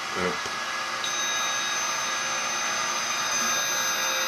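Small electric motor of a SkyRC 1/4-scale RC motorbike starting up again from standstill about a second in and running with a steady high whine over a whirring hiss, drawing more current as it goes; its control board is not regulating the motor's speed.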